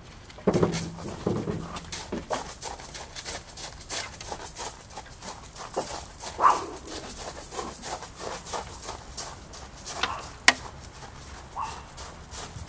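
A dog whimpering and giving a few short yelps, among scattered clicks and knocks.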